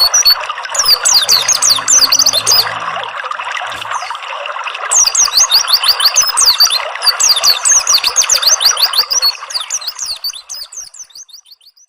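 Gurgling, trickling water under bursts of rapid, high, falling bird chirps, with a pause in the chirping of a couple of seconds. Both fade out near the end.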